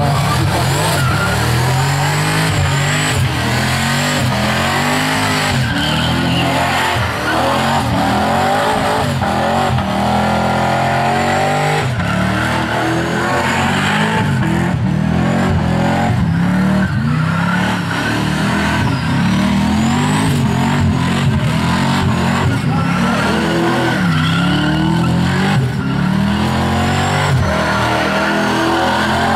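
Turbocharged 383 Holden V8 in a VL Commodore doing a burnout, held high in the revs with the pitch rising and falling again and again as the throttle is worked, over the steady squeal of the spinning rear tyres.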